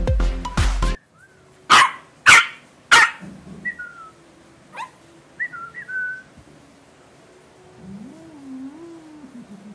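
Electronic music cuts off about a second in. Then a small long-haired puppy yips sharply three times, and short high whimpers follow.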